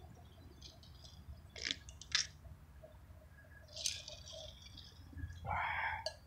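Faint sounds of a man drinking soda from a tumbler: a couple of small clicks, a short slurping sip about four seconds in, and a brief noisy sound near the end.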